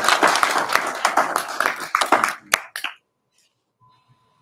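Applause from a small group of people, thinning out and stopping about three seconds in.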